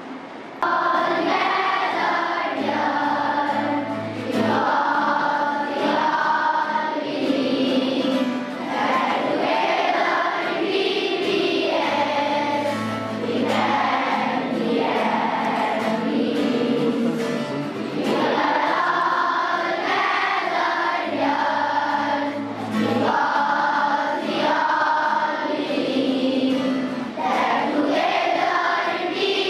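A group of schoolchildren singing the school song together as a choir, starting about half a second in.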